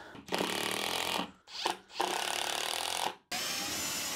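Cordless drill boring holes through plywood, running in stretches of about a second with three short stops between them.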